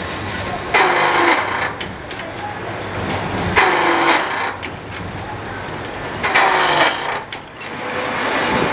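Milling machine running with a steady hum, its cutter biting into steel scissor blanks three times, about every three seconds. Each cut is loud for about half a second and ends on a short falling tone.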